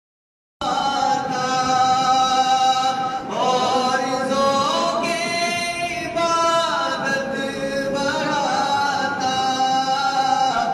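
A man's voice chanting a melodic devotional recitation, unaccompanied, in long held notes that glide from one pitch to the next; it begins about half a second in.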